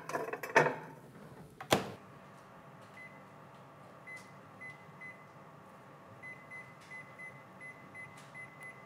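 Two knocks and a sharp clunk as the Panasonic combi steam oven's door is shut, then short high beeps from its touch control panel as high microwave power and a three-minute cooking time are set. The beeps are spaced at first and come in a quick run near the end.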